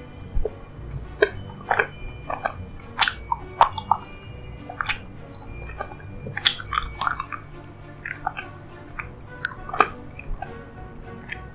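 Close-miked chewing of a soft, sticky dessert: irregular wet mouth clicks and smacks, with quiet background music.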